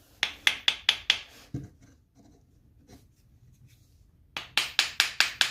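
Hammer rapping on the box of a stuck sharpening stone to knock it loose: a quick run of about six sharp knocks, a pause, then about seven more near the end.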